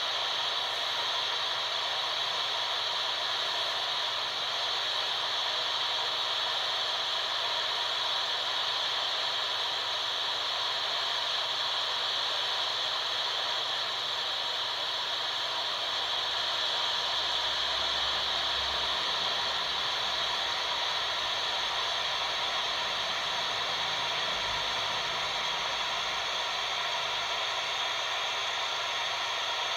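Steady static hiss from an RCI-2950 radio transceiver's speaker, received on 27.185 MHz (CB channel 19) with the squelch open and no voice coming through.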